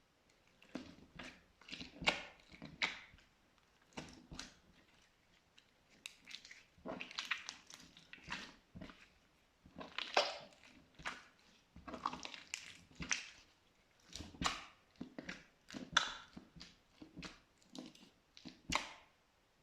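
Pink glitter slime being pressed and squished, giving irregular runs of wet, crackly squelches and small pops, with a short lull about five seconds in.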